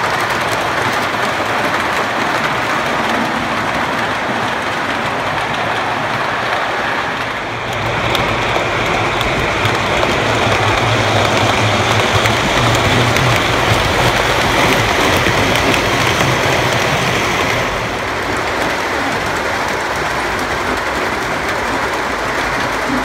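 O scale three-rail model train running: a continuous rattle and rumble of metal wheels on the track and the locomotives' motors. About a third of the way in it gets louder, with a low hum, as the cars pass close by, then eases back about three quarters of the way through.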